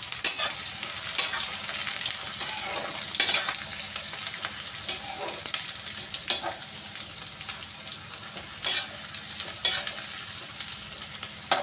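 Sliced onions frying in hot oil in a metal kadai, a steady sizzle throughout. A perforated metal skimmer stirs them, with occasional sharp scrapes and knocks against the pan.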